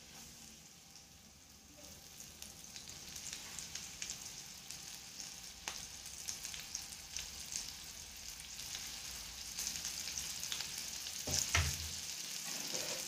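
Rava-coated surmai (king mackerel) steaks sizzling and crackling in shallow hot oil on a tava as they are laid in one by one; the sizzle starts faint and builds to a steady crackle as more pieces go in. One knock near the end.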